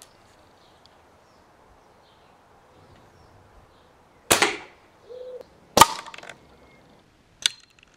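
Full-power spring-piston air rifle (Air Arms TX200 Mark III, .22) fired about four seconds in: a sharp crack with a short ringing tail. After a brief low hum, a second loud sharp crack follows about a second and a half later, and a fainter one near the end.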